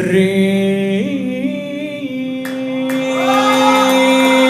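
A male voice holding one long sung note in an Iraqi religious chant (nasheed), with its pitch stepping up about a second in, over other steady held tones.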